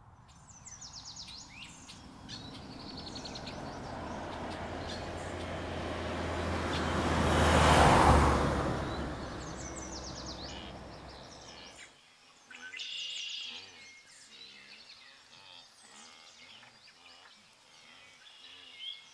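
A safari vehicle driving past on a dirt track: its engine and tyre noise swell to a peak about eight seconds in and then fade, with birds chirping throughout. The vehicle sound cuts off suddenly about twelve seconds in, leaving only bird calls.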